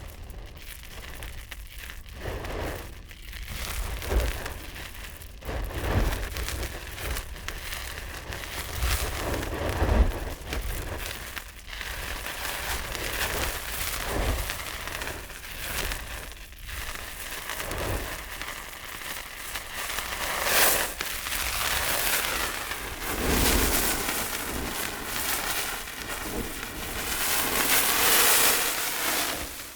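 Fire burning: a rushing sound of flames with irregular crackles and pops throughout, swelling louder over the last several seconds.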